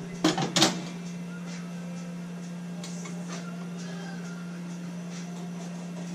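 A few sharp clicks and knocks as a side rail and cover are fitted back onto a large-format inkjet printer, within the first second, then a steady low hum with a few faint small taps.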